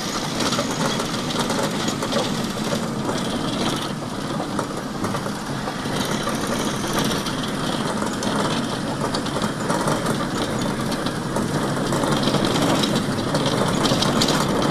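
Steady road traffic noise, with vehicle engines and tyres running close by.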